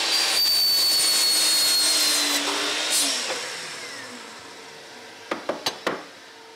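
Bosch sliding mitre saw running through a cut in 100 mm PVC soil pipe, its motor whine steady. After about two and a half seconds the motor winds down in falling pitch. A few light knocks near the end as the cut piece of pipe is picked up.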